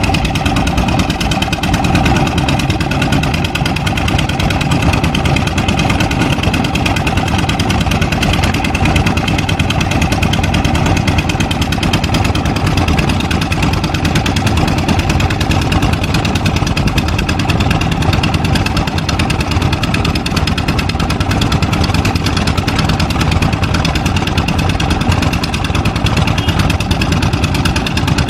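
Kobelco SK200 hydraulic excavator's diesel engine running steadily while the machine works.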